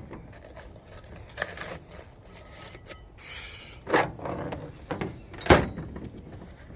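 Scrap metal pieces, cast aluminum among them, being handled and set down while they are sorted: a few irregular knocks and clunks, the loudest about five and a half seconds in.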